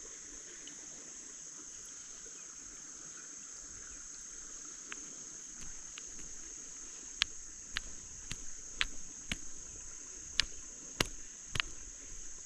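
Steady high-pitched drone of insects, crickets, throughout. Over it, from about halfway in, a run of sharp, irregular clicks and taps.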